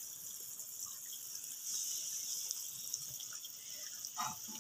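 Faint steady high-pitched hiss of background noise, slightly louder around the middle, with a few soft ticks.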